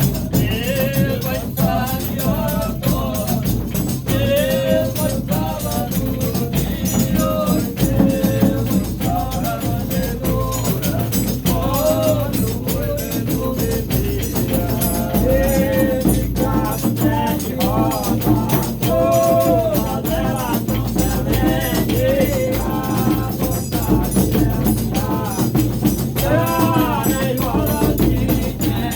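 Brazilian Reisado folk music: voices singing a wavering melody over a steady beat of rattles, tambourine and drum.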